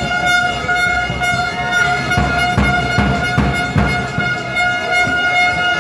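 A fan's air horn held on one steady, unbroken note, over crowd noise in the arena. A couple of seconds in comes a short run of rhythmic beats, about two and a half a second.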